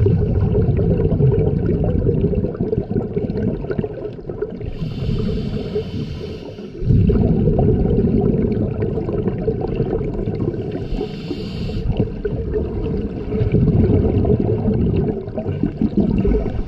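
Scuba diver breathing through a regulator underwater: long low rumbles of exhaled bubbles, broken twice by a short hissing inhale, about five and eleven seconds in.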